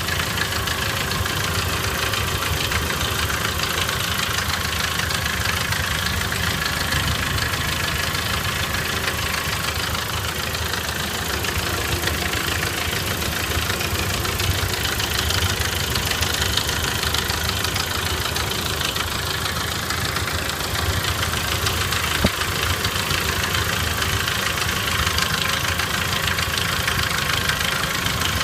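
ZMZ-409 inline-four petrol engine idling steadily with a knock at idle. A single sharp click stands out about three-quarters of the way through.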